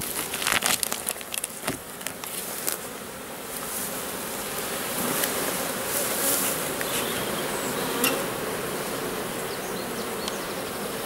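Honeybees buzzing around an opened hive. In the first few seconds there are a few clicks and rustles as the cover cloth is peeled back off the frames.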